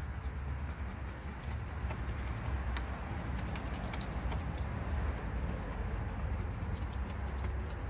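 A gloved hand rubbing and sanding the last of a sticker off a vehicle's painted front fender: a steady scratchy rubbing noise with scattered small clicks, over a low steady hum.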